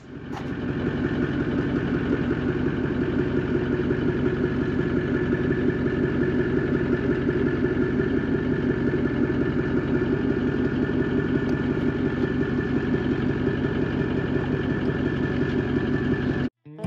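Tow vehicle's engine idling steadily, with no revving, while it sits backed up to the caravan's hitch. It cuts off suddenly just before the end.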